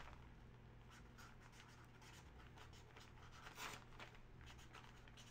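Near silence: room tone with faint, light scratching sounds off to the side.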